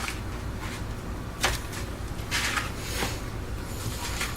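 Steady low hum of a room fan, with a few short clicks and a brief hiss over it.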